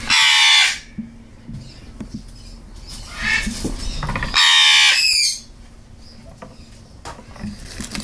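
Young parrot squawking: two loud, harsh squawks, one right at the start and one about four and a half seconds in, with a softer call shortly before the second.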